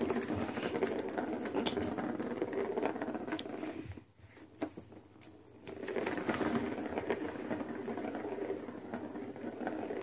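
A plastic ball rolling around the circular plastic track of a cat's scratch-pad toy as a kitten bats it along. The rolling stops for about two seconds a little after four seconds in, then starts again.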